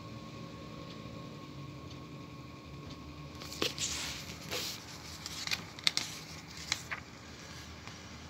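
Magazine pages turned by hand: soft paper rustling with a few sharp crackles between about three and a half and seven seconds in, over a faint steady hum.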